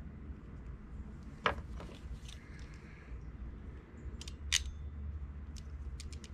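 Ratcheting crimping pliers crimping a red heat-shrink butt connector onto a wire: a few sharp, separate clicks, the loudest about a second and a half in and again past four seconds, over a steady low background rumble.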